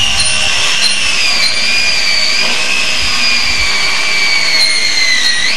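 A high-pitched whine, steady but slowly sinking in pitch, that jumps sharply higher near the end.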